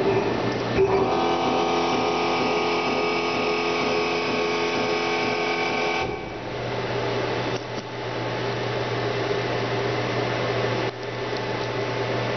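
Friction stir welding machine running as its rotating tool is withdrawn from a 2219-T87 aluminum plate: a steady machine hum with several held tones, and a click about a second in. About halfway through it gives way to a plainer, steady hum.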